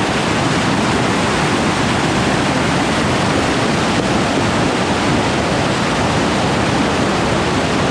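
Large waterfall on the Nzoia River: a loud, steady roar of falling water.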